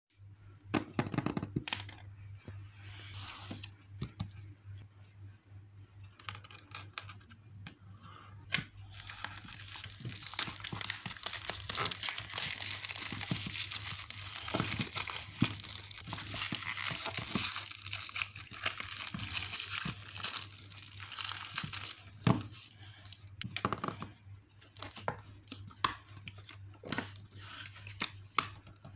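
Packaging being crinkled and torn open by hand, a dense rustle through the middle stretch, with scattered taps and paper handling before and after as a notebook is opened and its pages turned. A steady low hum runs underneath.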